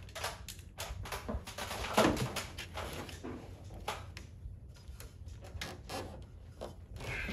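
Irregular clicks and clanks of hand tools working on metal as bolts are tightened, with a louder knock about two seconds in.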